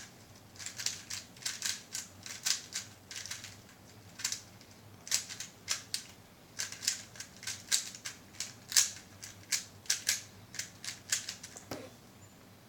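3×3 Rubik's cube being turned quickly during a speed solve: quick runs of plastic clicks and clacks as the layers snap round, with short pauses between runs.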